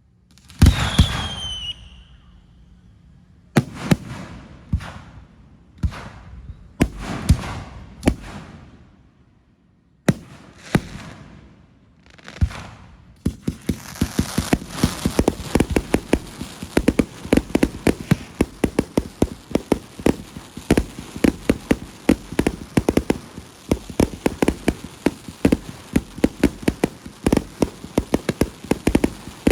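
Aerial fireworks going off: a first bang with a falling whistle, then about a dozen separate shell bursts. About halfway through, these give way to a dense, continuous crackle of many small pops.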